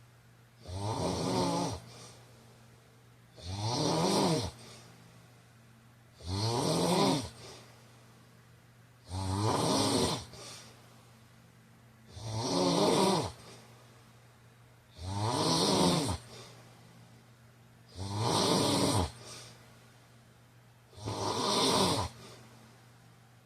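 A man snoring in his sleep with a steady rhythm: eight snores, one about every three seconds, each lasting about a second.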